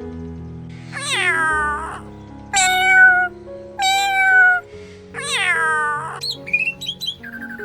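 Domestic cat meowing four times, each meow falling in pitch, over steady background music.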